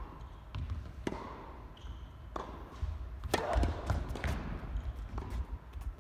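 Tennis ball impacts on an indoor court: a handful of sharp knocks about a second apart, over a steady low rumble.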